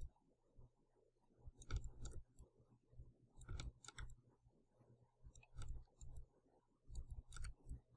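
Faint computer mouse clicks, several in quick pairs, spread through a quiet stretch over a low steady hum.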